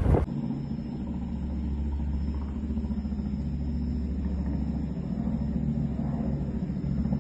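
Steady low engine hum, as of a motor vehicle running at idle.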